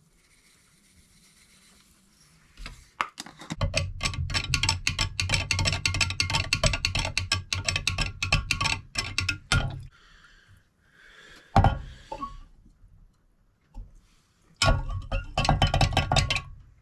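Instant coffee and water being stirred in a glass mason jar: rapid clinking against the glass with a ringing tone, in two spells, with a single loud knock between them.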